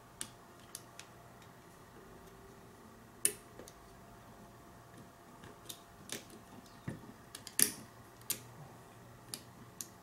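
Small, irregular metal clicks and taps from the steel levers and spring wires of an opened lever lock being fitted back into the lock case by hand, with two louder clicks a little past three seconds in and about two-thirds of the way through.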